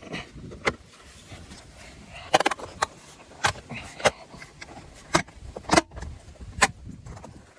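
A string of sharp, separate plastic clicks and knocks, about nine in all, as a car's side-mirror assembly is handled and pushed back into place on the door.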